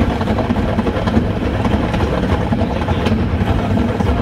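Metre-gauge railway train running along the track, heard from inside the rear cab: a steady low rumble of wheels on rails with a few faint clicks.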